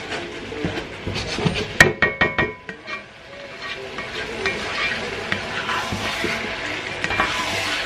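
Pepper sauce with fish sizzling in a frying pan as it is stirred and scraped with a slotted spatula. About two seconds in comes a quick run of sharp knocks of the spatula on the pan, the first the loudest.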